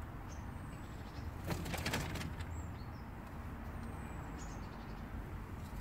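Chopped vegetables tipped from a bowl onto hay and wood-shavings bedding: a brief rustling clatter about one and a half seconds in, over a low steady background rumble with a few faint high chirps.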